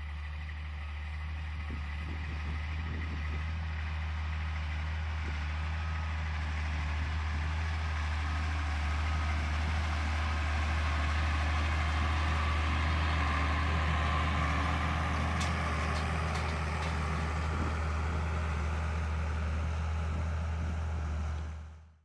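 Ford 7810 III's 6.6-litre six-cylinder diesel running steadily under load as the tractor pulls a disc harrow through the field. It grows louder as the tractor draws close about halfway through, then eases off a little.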